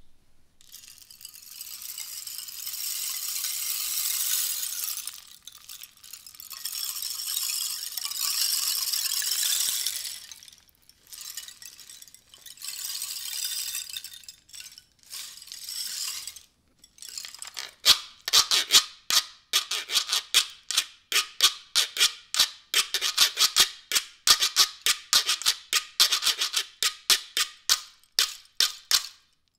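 A three-in-one rain stick, rattle and güiro played in turn. Two long pours of seeds running down the rain stick, then a few short rattling shakes, then the ridges scraped with a stick in quick rasping strokes, about three a second.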